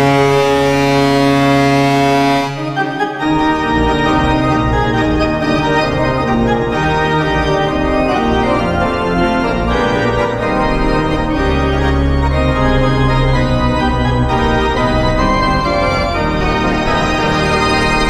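Hockey arena goal horn blaring one steady, held tone that stops about three seconds in. A goal song with organ then follows.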